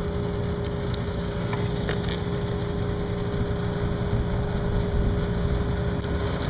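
Small air compressor running steadily, pumping air into a flat motorcycle tire, with a few light clicks.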